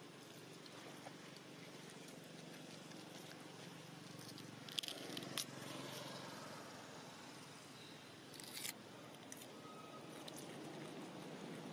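Faint outdoor background hiss, broken by a few short crackles about halfway through and one brief scuffing burst near the end.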